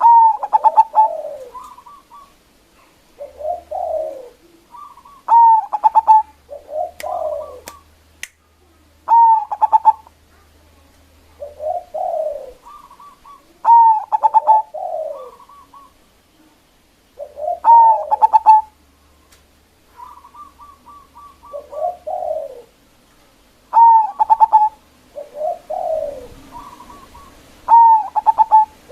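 Zebra dove (perkutut) singing its loud cooing song: short phrases of quick staccato coos, each opening on a sharp high note and falling into lower rolling coos, repeated every couple of seconds.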